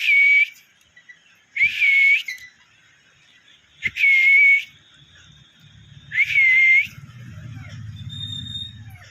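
Pet parrot whistling: four short, level whistles about two seconds apart, with a faint low rumble after the last one.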